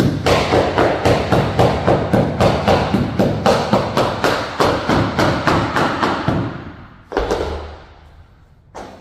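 Hammer striking a rubber floor strip in quick, even blows, about four to five a second, tapping it down into the seam of a wooden floor. The hammering stops about six seconds in, and a single thud follows a second later.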